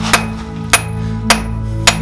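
Hammer blows on a red-hot bar of 20 mm round mild steel lying on an anvil: four strikes, about two a second, each with a short metallic ring.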